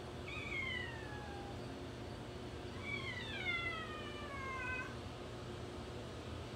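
Ragdoll kitten meowing twice, each call sliding down in pitch: a short meow just after the start, then a longer one about three seconds in.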